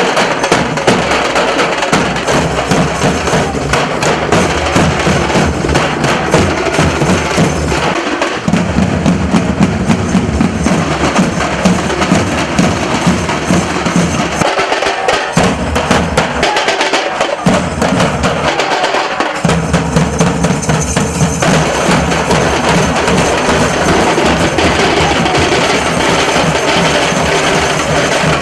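Nasik dhol drum troupe playing a loud, driving rhythm on dhol drums. The deep drum beats drop out briefly a few times midway.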